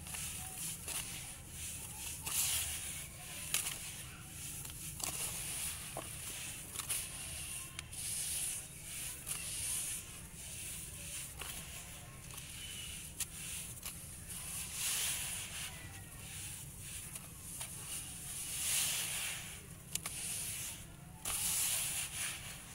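Hands squeezing, crumbling and raking damp gray sand in a plastic tub: gritty crunching and rustling that comes in uneven bursts, louder over the last few seconds.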